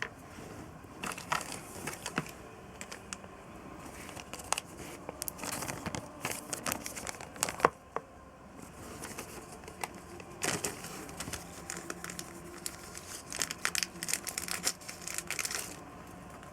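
Irregular clicks, taps and crinkling of hands-on handling work, in busy spells from about one to two seconds in, from about five to eight seconds, and from about ten and a half to sixteen seconds. A single sharp click just before the eighth second is the loudest sound.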